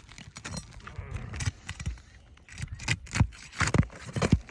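Metal roofing tool scraping and knocking against architectural asphalt shingles as they are worked loose, in irregular sharp taps that come thicker in the second half.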